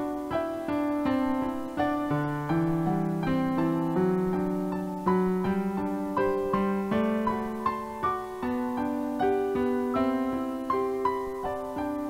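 Slow, gentle piano music: notes struck one after another about every half second to a second, each left to ring and fade over lower held notes.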